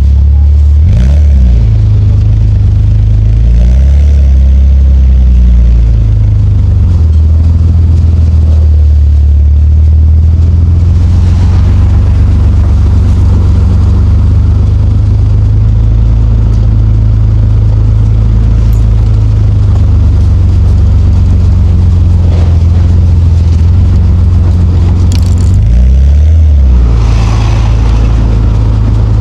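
Nissan Skyline R34 GT-T's turbocharged RB25DET straight-six running at low revs while driving, a steady low drone. The revs shift briefly about a second in and again near the end.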